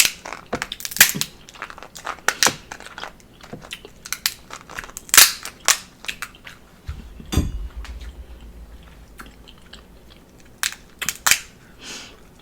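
Close-up eating of snow crab legs: shells cracking and snapping with sharp clicks, and chewing in between. A dull low thump comes about seven seconds in.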